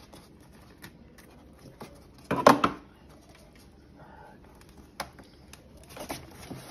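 Scissors snipping twine and fur from tangled squirrel tails, heard as faint clicks over handling rustle. One sudden loud noise about two and a half seconds in.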